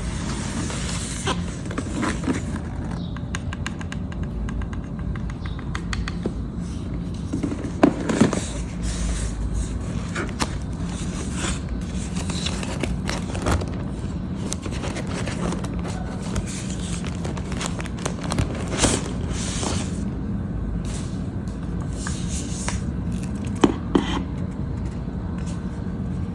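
Scraping, rustling and light clicks of a laptop and its packaging being handled during an unboxing, with a steady low hum behind.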